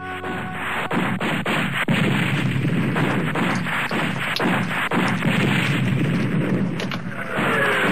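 Dense, loud rumbling noise with many irregular sharp cracks and knocks, and a faint falling whistle near the end.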